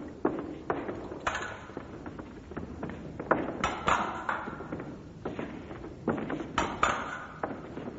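Steel fencing blades striking and clinking against each other at an irregular pace, about a dozen contacts, some ringing briefly, mixed with dull thuds.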